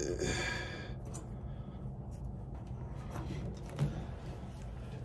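A person's breathy exhale, about a second long at the start, then a low steady hum with a few faint clicks and taps.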